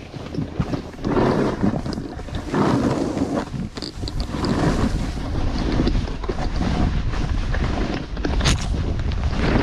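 Wind buffeting the microphone during a fast downhill ride through a snowstorm, a constant low rumble with swells of rushing, scraping noise every second or two.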